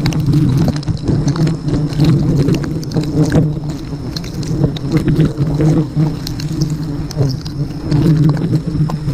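Bees buzzing close by in a loud, steady, wavering drone, with scattered knocks and rustles of handling.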